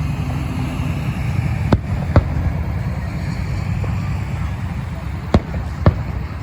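Fireworks going off: four sharp bangs in two pairs about half a second apart, one pair about two seconds in and the other near the end, over a steady low rumble and voices.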